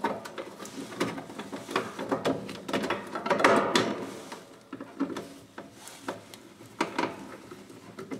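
Cover of a boiler wiring box being fitted back on by hand: a string of clicks and knocks with scraping and rubbing of the casing, most dense about three to four seconds in.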